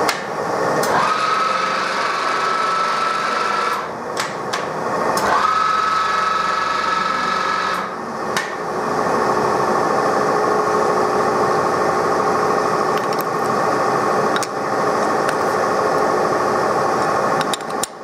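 TOS SN63B lathe running with a steady mechanical hum. Twice, for about three seconds each, a higher whine starts with a short rise and holds as the carriage is driven under power toward the chuck. Sharp clicks and knocks of levers and handles come in between and after.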